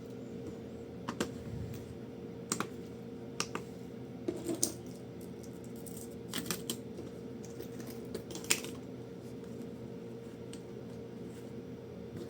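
Scattered light clicks and taps, some single and some in quick pairs, from small gear being handled and balanced on a scale. A faint steady hum runs underneath.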